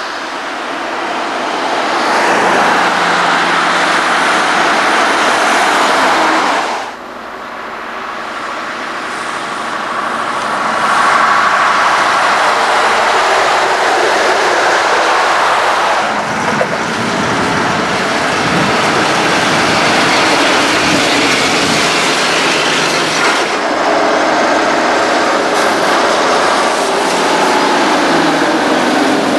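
Heavy trucks driving past close by, a loud run of engine and tyre noise that swells and fades as each goes by. The sound breaks off sharply about seven seconds in and shifts abruptly a few more times.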